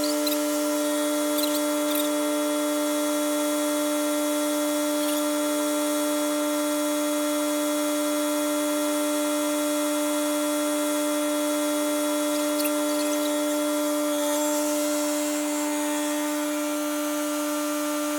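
Kubota compact tractor running at a steady speed with a constant high whine.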